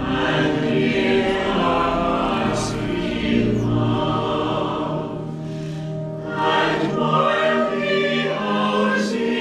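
A church congregation singing a hymn together, a mass of voices holding long notes.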